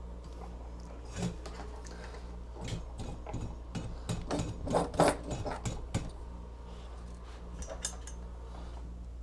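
Small hard tools and parts being handled, clinking and knocking in a quick irregular string that is loudest about five seconds in, over a low steady hum.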